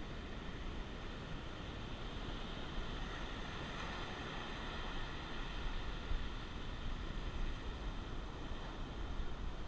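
Ocean surf washing ashore, a steady rush that swells about four seconds in, with a low rumble of wind on the microphone.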